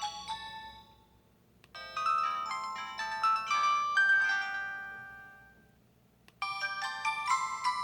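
Built-in electronic melody tones of a 2007 Samsung Anycall SPH-W2500 mobile phone, played one after another. One chiming melody fades out, then a short bell-like jingle starts with a click, rings out and fades. About six seconds in, another click opens the next jingle.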